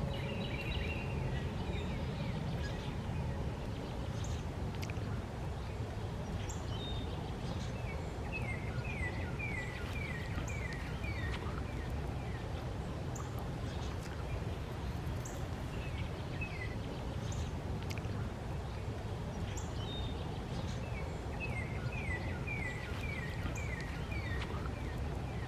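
Steady low outdoor rumble, with a small songbird twice singing a quick series of about eight short falling notes, once about nine seconds in and again near the end. No sound from the owl stands out.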